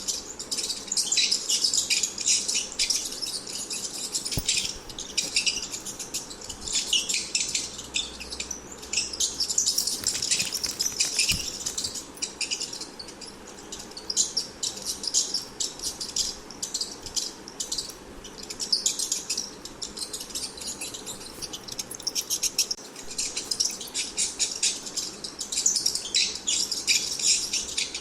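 Rats squeaking: rapid high-pitched squeaks and chirps in dense clusters, one after another with brief pauses.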